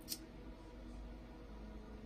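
Quiet room tone with a faint steady low hum, and one short sharp click just after the start.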